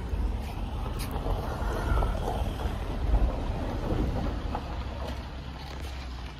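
A car engine running close by, with wind buffeting the microphone.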